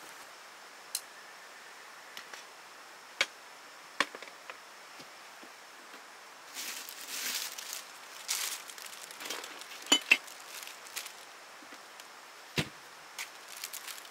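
Scattered sharp clicks and knocks, two of them close together about ten seconds in, with a few bursts of rustling in the middle, over a steady faint hiss.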